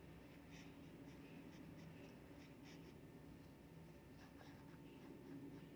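Faint scratching of a pen writing on workbook paper, in short strokes.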